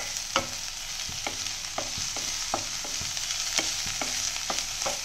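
Chopped onion, beans, carrots and peas sizzling in oil in a stainless steel kadhai, sautéing, while a wooden spatula stirs them, scraping and knocking the pan about twice a second.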